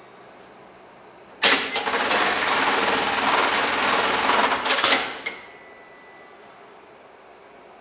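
Garudan computer-controlled industrial sewing machine running one programmed stitch cycle through a thick cushion. It starts abruptly with a clack about a second and a half in, runs fast and steadily for about three and a half seconds, and ends with a few clacks as it stops.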